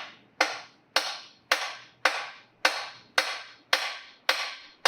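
Hammer blows on metal in a steady rhythm, about two a second, each ringing briefly: the seized crankshaft of a GM 3.6 V6 is being hammered to try to free it, and it does not move.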